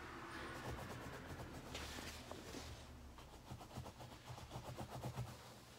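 Faint rustling and scattered small clicks of a cloth draped over the phone shifting against it as an arm moves across it, over a low steady hum.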